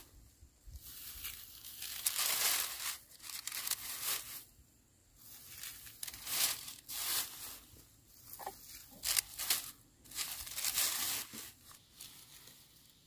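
Dry plant material being worked by hand: irregular rustling, tearing swishes, roughly one a second.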